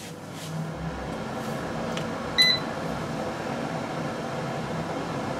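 Hot-air fryer oven running with its fan and rotisserie motor, a steady whirring hum that builds up over the first second after switch-on. A single short electronic beep from the control panel sounds about two and a half seconds in.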